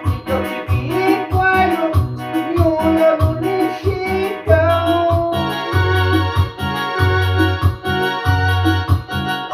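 Yamaha PSR-S750 arranger keyboard playing a melody over a steady bass beat.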